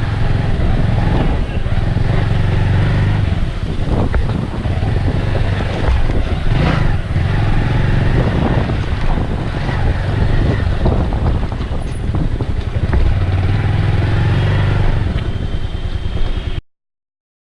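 Wind buffeting and road and engine noise from a ride on a rough road, picked up by the GoPro Hero 5 Black's built-in microphone: a steady loud rush with a heavy low rumble. It cuts off suddenly near the end.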